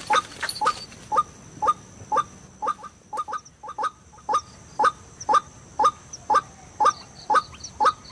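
White-breasted waterhen (ruak-ruak) calling: a monotonous run of short, repeated 'kwak' notes at about two to three a second.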